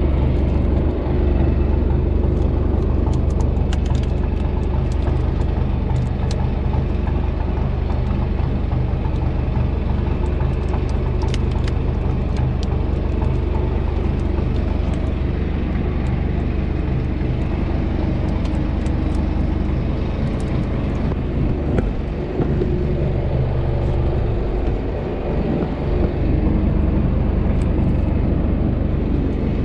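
Small wooden fishing boat's engine running steadily, with scattered light clicks and knocks over it; the engine note drops briefly about three-quarters of the way in.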